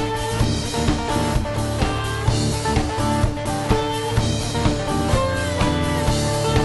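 Music with a steady beat, about two beats a second.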